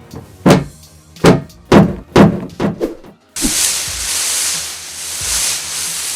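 Foley sound-effect demonstration: a run of sharp thunks and knocks, then a steady hissing rasp that starts abruptly about halfway through and lasts about three seconds.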